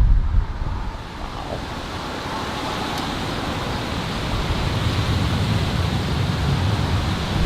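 Strong thunderstorm wind rushing as a steady hiss that slowly builds, with low rumbling of wind on the microphone.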